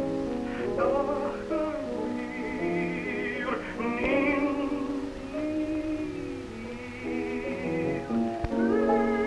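Operatic tenor singing with a wide vibrato to piano accompaniment, on an early 1930s sound-film recording, moving into a long held note near the end.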